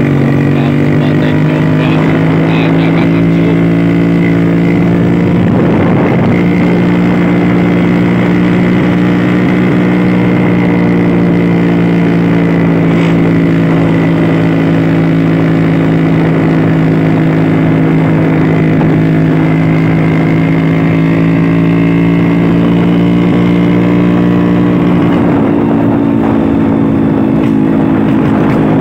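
A vintage Vespa scooter's two-stroke single-cylinder engine running at a steady cruising speed under way, easing off slightly near the end.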